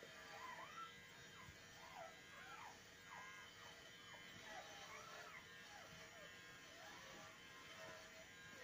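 Newborn puppies squeaking and whimpering faintly: a steady run of short, high, bending squeaks, several a second, over a faint steady hum.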